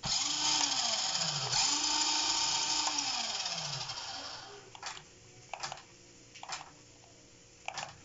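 Electric motor and drivetrain of a radio-controlled car whining as its wheels spin freely off the ground. The pitch rises and falls with the throttle for about four and a half seconds, then comes four short throttle blips.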